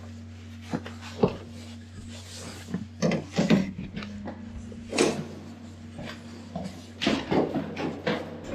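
A series of knocks and clunks, like things being handled or shut, over a steady low hum.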